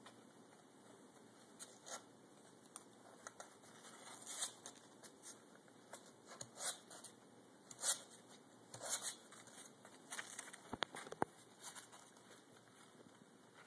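Kittens stirring in a cardboard box: faint, irregular rustling and scratching of fur and paws against the cardboard, with a couple of sharp clicks about eleven seconds in.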